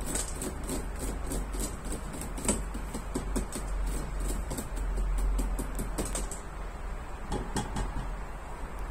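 Fingernails tapping and scratching on the slatted plastic lid of a top-entry cat litter box: a run of light, irregular clicks, several a second, over a low steady hum.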